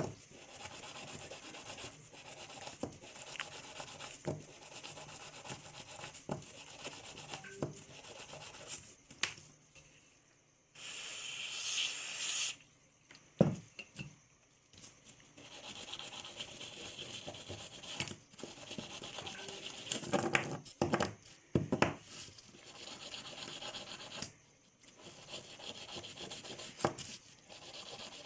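Rubbing and scrubbing on an old rusty steel bearing, a scratchy abrasive sound broken by scattered clicks and knocks of metal. A short hiss comes about eleven seconds in, and a cluster of knocks about twenty seconds in.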